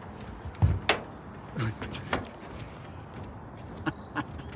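Footsteps on a corrugated sheet-metal roof: several irregular knocks and thuds of shoes on the metal, the loudest about a second in.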